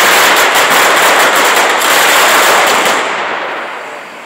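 Dense, rapid string of firecrackers going off around a burning falla monument, a loud continuous crackle. About three seconds in it dies away, leaving a softer hiss.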